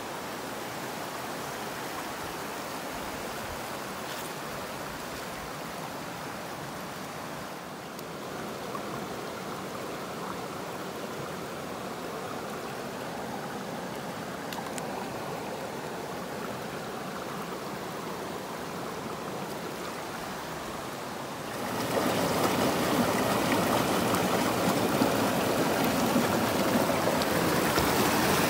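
Rushing stream water flowing over rocks, a steady hiss. A little over three-quarters of the way through it gets suddenly louder and fuller.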